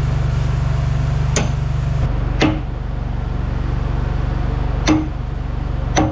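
Four sharp metal-on-metal hammer blows, unevenly spaced, each with a brief ring, struck at a seized part on a Komatsu D41A bulldozer's hydraulic cylinder that will not budge. A steady low hum runs underneath.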